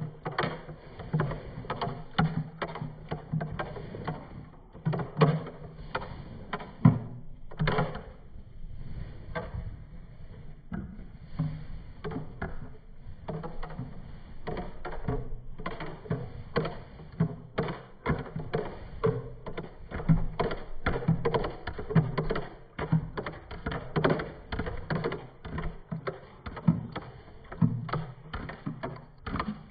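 Metal spoon stirring and scraping a thick smoothie in a plastic blender cup, knocking against the cup in quick, irregular taps.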